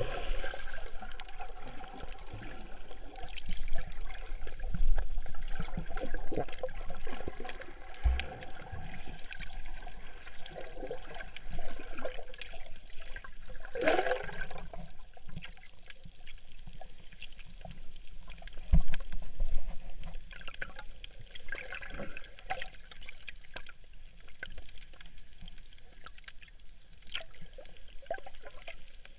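Water pouring and sloshing, with irregular trickling and gurgling and a few louder bursts along the way.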